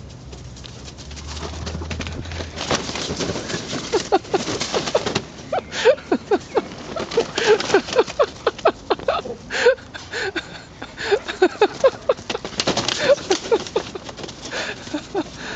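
Northern Inuit dogs playing: quick runs of short yips and whines, several a second, mixed with scuffling knocks.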